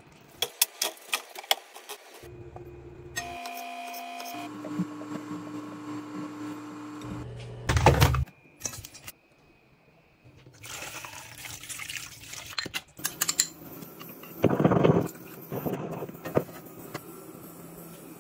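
Quick cuts between kitchen sounds: sharp knife clicks on a plastic cutting board as a fish is filleted, steady hums, a loud short noise about eight seconds in, then water rushing and splashing with a loud burst about fifteen seconds in.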